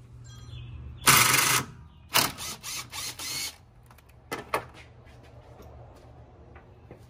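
Tools being handled in a car's engine bay: two short bursts of rattling about a second and two seconds in, then a few scattered clicks.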